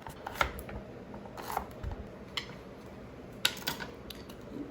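Knife chopping peeled garlic cloves on a cutting board: a few separate cuts, about a second apart.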